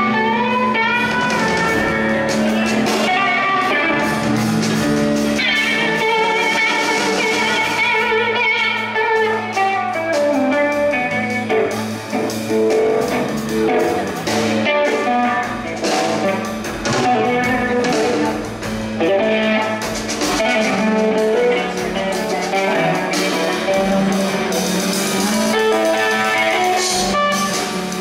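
Rock band playing live, led by electric guitar with bending, gliding notes over a steady held low note.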